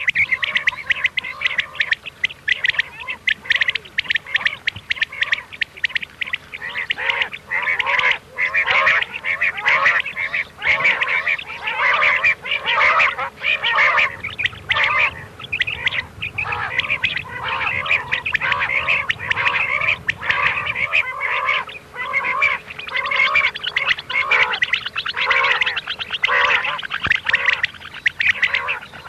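Many quails calling over one another in a dense, unbroken run of short, repeated calls: a recorded quail call used to lure quail for hunting.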